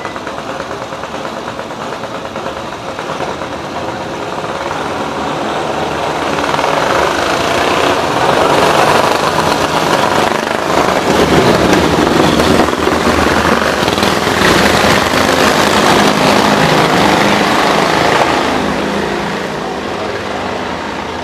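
Several vintage motorcycle sidecar outfits ride past with their engines running. The engine noise builds over a few seconds, stays loud for about ten seconds as the machines go by close, then fades away near the end.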